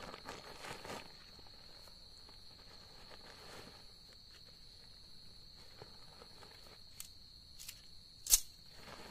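Insects trilling steadily at one high pitch, with rustling of tent fabric in the first second. Near the end come a couple of light clicks and then one sharp click, the loudest sound.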